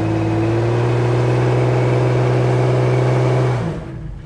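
Jeep Cherokee XJ's engine held at high revs in four-wheel drive while its tyres spin in loose sand, digging the Jeep in to anchor it for a winch pull. The revs drop off sharply about three and a half seconds in.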